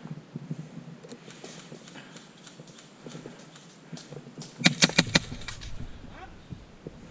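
A quick run of about six sharp snaps from an airsoft gun firing, a little under five seconds in. Quieter scuffing and rustling of footsteps comes before it.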